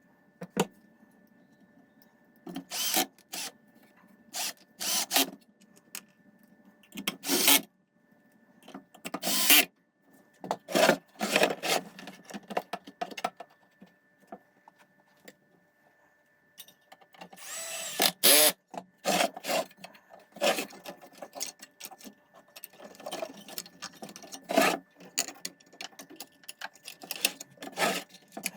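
Irregular bursts of scraping and rubbing from hand work on parts of a hi-fi unit under restoration, each lasting under a second, with quiet gaps between them.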